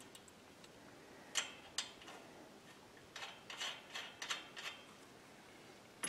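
Light metallic clicks and ticks as a cart wheel is fitted back onto its axle spindle and the hub hardware is worked by hand: two clicks, then a quick run of them about three seconds in.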